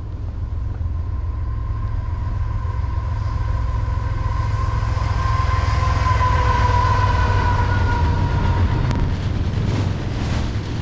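CN freight train passing close by: a diesel locomotive and double-stacked container cars with a heavy low rumble that grows louder. A long, steady high tone rides over the rumble and stops about nine seconds in.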